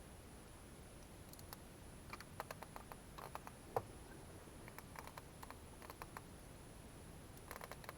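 Hand wire cutters snipping and clicking at a car battery cable to cut off the old terminal: faint scattered clicks with one sharper snap about midway.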